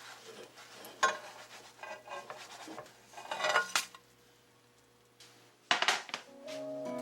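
Dishes and cutlery clinking and knocking: a few separate clatters, the loudest about a second in, around three and a half seconds and near six seconds. Guitar music comes in near the end.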